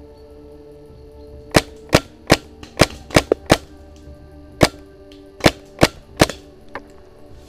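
Paintball marker firing about eleven sharp shots in quick, irregular groups, with a last fainter pop near the end.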